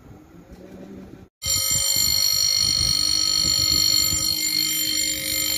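Level crossing warning bell ringing loudly and continuously, starting abruptly about a second and a half in. This is the warning given as the barriers come down for an approaching train.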